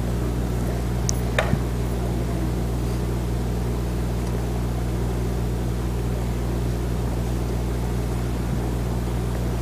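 Steady low electrical-sounding hum with an even hiss: room tone picked up by a lapel microphone. A faint short click comes about a second and a half in.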